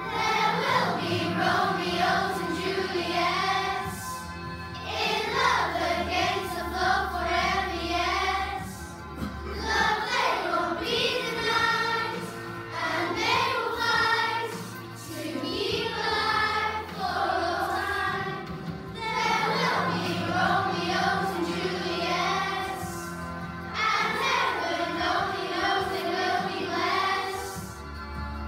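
Children singing a song together into microphones, in sung phrases of a few seconds each with short breaks, over instrumental accompaniment.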